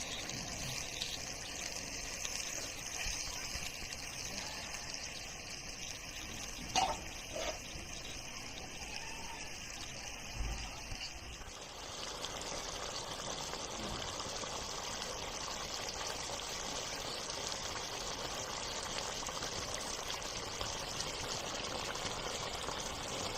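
Potato curry cooking in a pan: a steady bubbling hiss, with two light knocks about seven seconds in.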